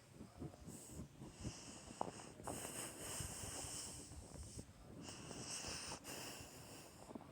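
A person breathing close to the microphone, faint, in slow hissing breaths of about a second or two each, with scattered soft clicks.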